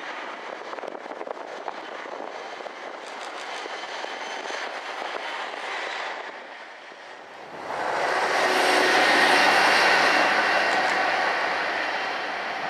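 DRS Class 57 diesel locomotive, with its EMD two-stroke engine, hauling a failed Class 68 locomotive along the main line. It runs steadily as it approaches, dips briefly, then swells to its loudest about eight seconds in as the pair pass close by, and fades as they move away.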